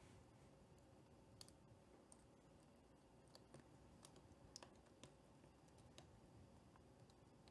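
Near silence with faint, scattered small clicks and taps, about half a dozen, as fingers handle and press the flex cable and plastic parts of an opened Zune MP3 player.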